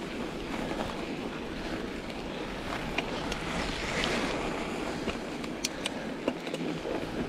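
Mountain bike with Schwalbe Ice Spike studded tyres rolling along a packed snow trail: a steady rushing noise of tyres on snow mixed with wind on the microphone, with a few sharp clicks.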